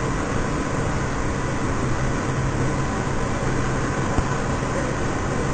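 A vehicle engine running steadily: a low, even drone under a wash of noise.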